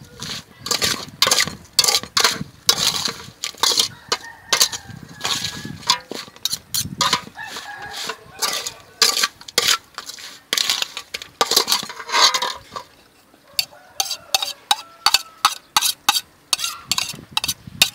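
Irregular clinking and clattering of dishes and utensils: many quick, sharp knocks with no steady rhythm.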